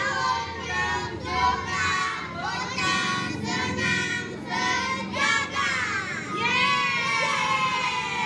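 A group of children singing and shouting together in high voices, ending in one long falling cheer.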